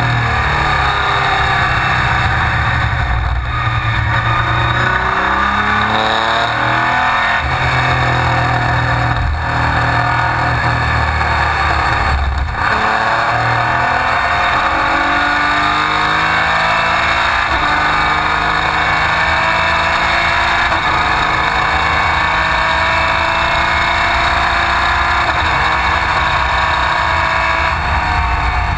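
Race car engine under load, heard from inside the open cockpit. Its pitch climbs again and again as the car accelerates, with brief breaks a few times.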